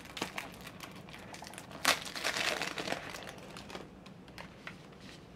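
Packaging of a deck of playing cards being opened by hand: a few light clicks, then a sudden loud rip of the wrapper about two seconds in, followed by a couple of seconds of rustling and ticking that dies away.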